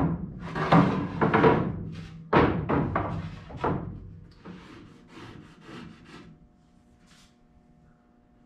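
Loose pine boards knocking and scraping against one another as they are handled and laid down: a run of loud wooden knocks and slides over the first four seconds, then fainter ones that stop around six seconds in.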